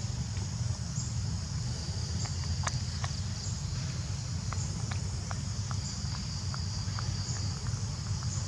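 Insects chirring steadily at a high pitch over a low, steady rumble, with a scatter of faint short clicks through the middle.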